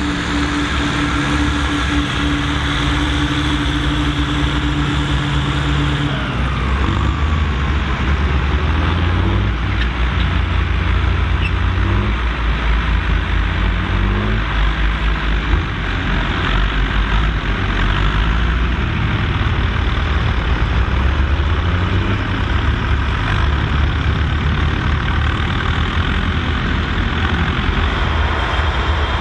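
Volvo BM 2654 tractor's diesel engine running steadily under load while pulling a plough, its note shifting a little now and then.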